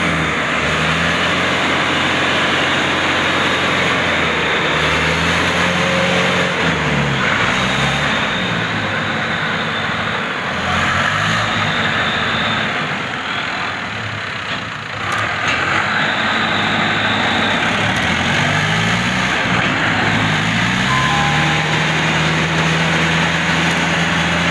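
Diesel engines of a Landini Atlantis DT85 tractor and a Mitsubishi Fuso dump truck running under heavy load as the tractor works to free the truck stuck in mud. The engine pitch rises and falls several times as they rev.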